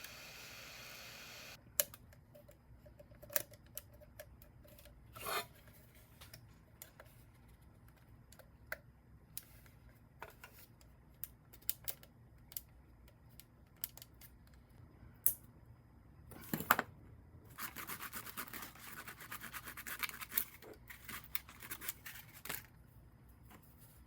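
Hand work on small plastic toy parts: scattered light clicks and taps, then about five seconds of fast, dense scratching in the second half. A steady hiss stops abruptly after about a second and a half.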